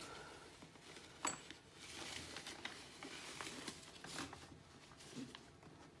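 Faint rustling and handling noises, with one sharp click about a second in.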